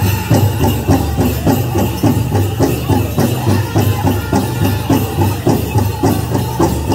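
Powwow drum group playing a chicken dance song: a big bass drum struck in a steady, fast beat under high-pitched group singing, with jingling bells over it.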